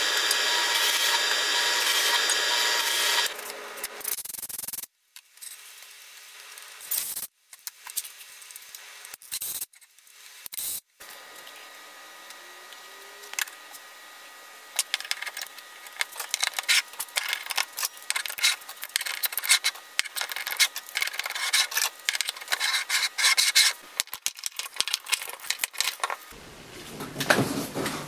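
A bench drill press's motor running steadily for the first few seconds. After a few cuts there is a long stretch of irregular rubbing and scraping on plywood.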